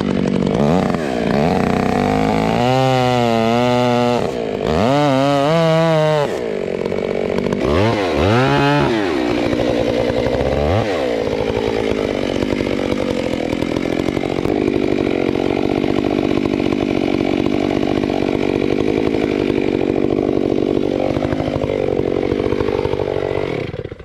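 Gas chainsaw revved up and down several times, then held at full throttle and running steadily under load while cutting the face notch into a large cottonwood trunk. It cuts off suddenly just before the end.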